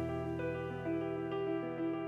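Soft background music: a slow melody of held notes over a steady low bass.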